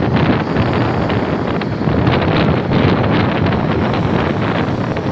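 Wind buffeting the microphone, heavy and steady, over military vehicles driving past: the engines and tyres of a six-wheeled army truck and Humvee-type vehicles.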